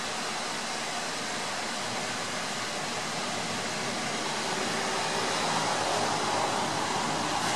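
Light rain falling, a steady hiss that grows slightly louder over the last few seconds.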